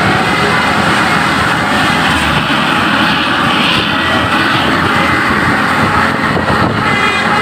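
A large bus driving past close by, its engine and road noise a loud steady roar. Near the end, the tones of a multi-note telolet horn start to come in.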